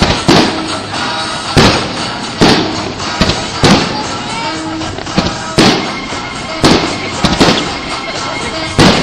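Fireworks display: shells bursting in sharp bangs about once a second, over steady music.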